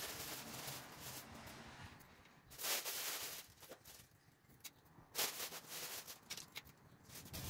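Close handling noises: irregular rustling and scraping, with two louder scrapes about two and a half and five seconds in and a few light ticks.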